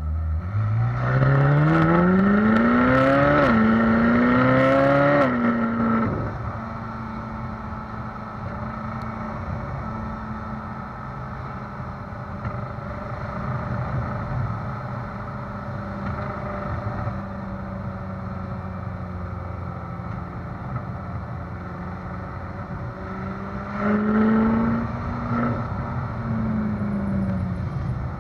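Ferrari California's V8 exhaust accelerating, rising in pitch through an upshift about three seconds in, then lifting off to cruise at a steady low drone. Near the end it picks up briefly again and eases off. Under it runs tyre rumble and clatter from a rough road surface.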